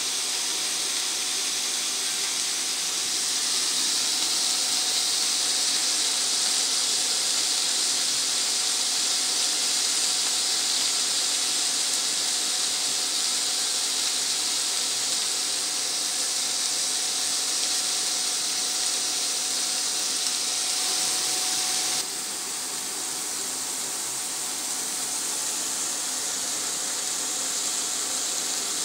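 Shrimp sizzling in a stainless steel frying pan: a steady hiss that drops a little, suddenly, about three quarters of the way through.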